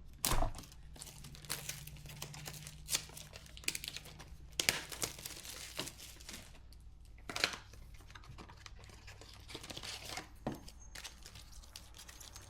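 Foil Pokémon booster pack wrapper being torn open and crinkled: irregular crackling throughout, with a few louder rips.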